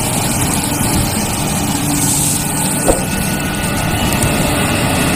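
Caterpillar 320D hydraulic excavator's diesel engine running steadily as the machine digs, with one sharp knock about three seconds in.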